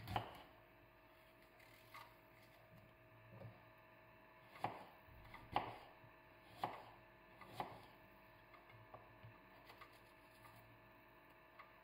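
Small kitchen knife slicing an apple on a wooden cutting board: a series of sharp knocks, about one a second, as the blade goes through the fruit and meets the board. These give way to light clicks in the last few seconds.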